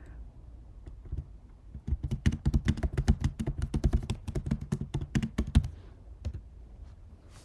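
Typing on a computer keyboard: a few scattered keystrokes, then a quick, steady run of clicking keys for about four seconds before it tapers off.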